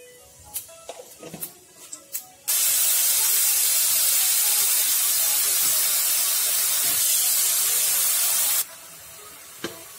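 Onion paste hitting hot oil in a kadai, sizzling loudly as a cloud of steam rises: it starts suddenly about two and a half seconds in and drops to a much quieter sizzle about a second and a half before the end. Before it come a few light clicks.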